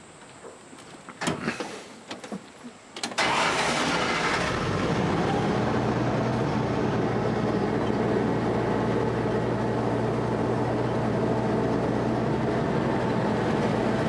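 A few faint knocks, then about three seconds in the army duck's engine comes in suddenly and runs on steadily with a low hum.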